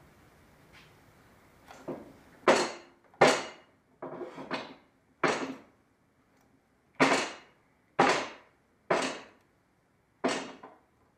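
About ten sharp knocks, irregularly spaced, each ringing briefly: wood and clamp hardware struck while a glued, biscuit-joined board is drawn together in clamps.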